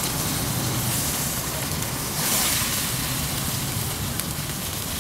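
Stir-fry sizzling in a hot wok: a steady hiss with a low rumble underneath, swelling briefly a little over two seconds in.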